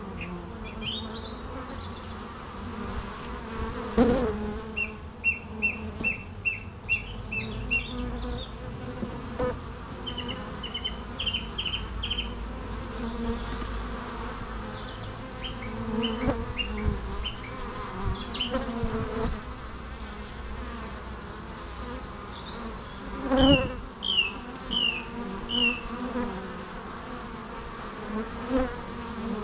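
Bees buzzing in a steady, continuous hum. Runs of short high chirps come and go over it, and two sharp knocks stand out, one about four seconds in and one near the end.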